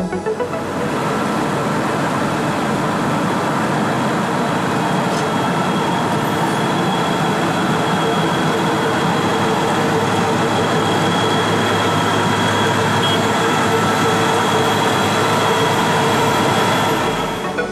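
Large cold milling machine working along the road: a dense, steady grinding machine noise of engine and cutting drum on asphalt, with a constant whine on top. It comes up in the first second and drops away near the end.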